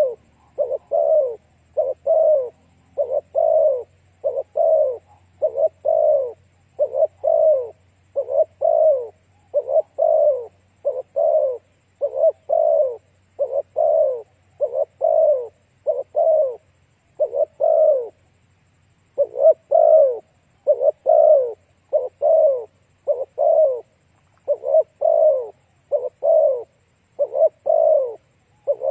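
Spotted dove cooing: a long run of short, low coos repeated in quick succession, each note dropping slightly in pitch, with a brief pause about two-thirds of the way through.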